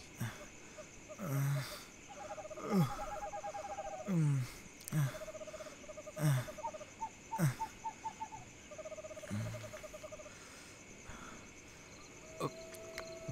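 Night ambience of insects chirring steadily, with trains of short trilling calls like frogs. Through it, a call repeats roughly every second, each one sliding down in pitch.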